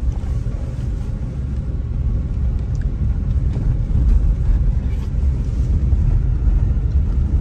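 Low, steady rumble of a moving car heard from inside the cabin: engine and tyre noise on the road, getting a little louder about halfway through.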